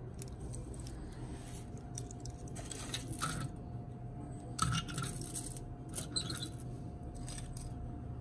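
Aluminium foil crinkling under a hand as a toy car is set down on a foil-covered surface, in about four short rustling bursts.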